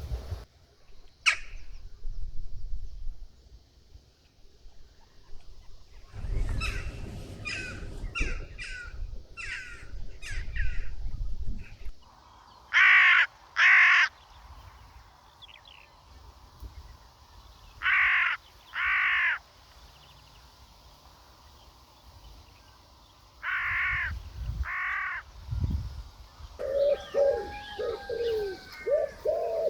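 Crow cawing: after a run of shorter calls, three loud pairs of harsh caws about five seconds apart. Lower, quicker repeated bird calls come in near the end.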